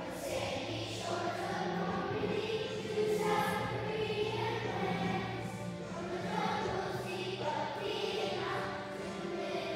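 Large group of children singing a song together over instrumental accompaniment, the voices coming in at the start.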